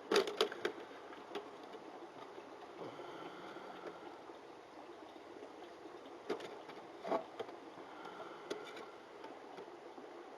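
Scattered light clicks and taps from handling a knife-sharpening jig: a quick cluster right at the start, then single ones about six and seven seconds in and a few more near the end, over a steady background hiss.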